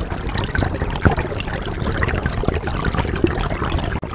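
River water trickling and splashing in a dense crackle, over a low rumble.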